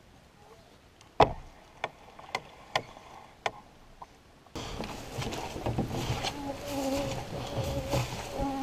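A few sharp knocks against quiet, the first the loudest, then from about halfway flying insects buzzing steadily and close, with a wavering hum.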